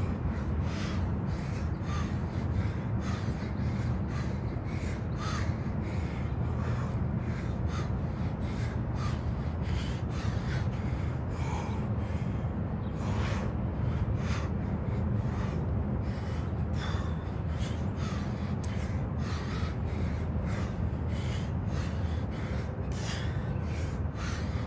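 A man breathing hard through a set of bodyweight squats, with short sharp exhales about once a second, over a steady low background rumble.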